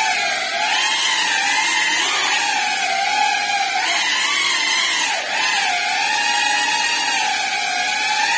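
GEPRC CineLog35 3.5-inch ducted FPV cinewhoop in flight, its brushless motors and props giving a loud buzzing whine whose pitch rises and falls constantly with the throttle. The pitch dips briefly about five seconds in.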